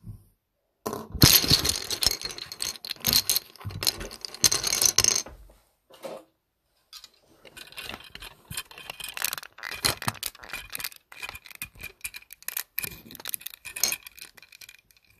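Plastic LEGO bricks clattering and rattling together in a dense run of small clicks. A short pause comes near the middle, then lighter, scattered clicking.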